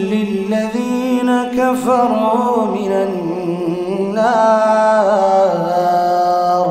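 A man's voice chanting Quran recitation (tilawa) in a slow, ornamented melody, one long unbroken phrase. The pitch steps down and then climbs again about four seconds in.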